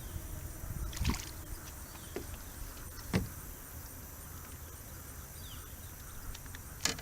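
Handling noises in a small fishing boat: three sharp knocks, about a second, three seconds and seven seconds in, over a steady low rumble.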